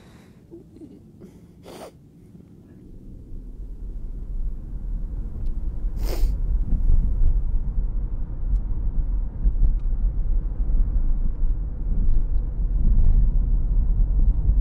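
Two sharp sniffs from a man with a cold in the first couple of seconds. Then the low rumble of a car cabin on the move swells in from about three seconds and holds steady, with one short sharp noise about six seconds in.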